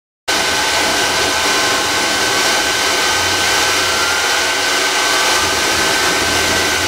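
Homemade turbojet built from a T18A40 turbocharger and a Rolls-Royce Dart turboprop combustor, burning diesel with flame at the exhaust while an electric leaf blower forces air into its compressor inlet. It cuts in suddenly as a loud, steady rush with a high steady whine over it.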